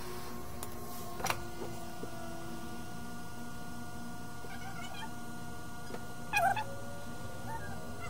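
A cat meows once, loudly and briefly, about six seconds in, after a fainter call around five seconds, over a steady hum from bench equipment. A single sharp click comes about a second in.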